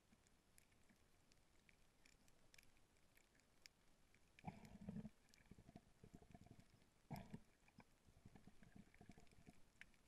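Near silence: faint underwater noise through a GoPro's waterproof housing, with scattered faint clicks and two short, low, muffled rushes, one about four and a half seconds in and another around seven seconds.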